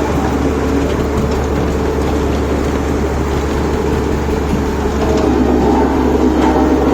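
Heavy engine of a road-construction machine running steadily, growing a little louder from about five seconds in.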